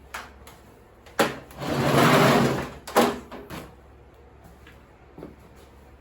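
Objects being handled and moved: a sharp knock, then a scraping, sliding rush lasting a second or so, then another knock and a lighter one.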